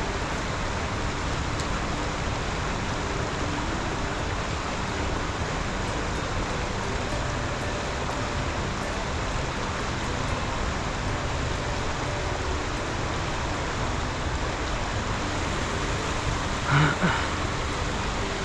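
Fast-moving creek water rushing steadily over rocks. A brief, louder sound breaks in near the end.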